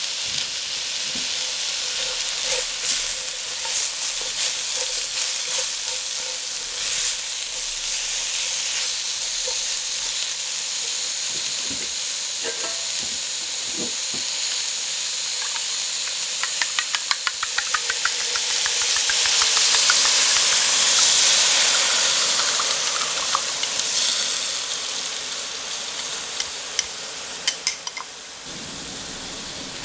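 Sliced onion, bell pepper and carrot sizzling in oil in a hot steel wok: a steady hiss with scattered crackles that swells louder for a few seconds midway, then eases, with a few sharp ticks near the end.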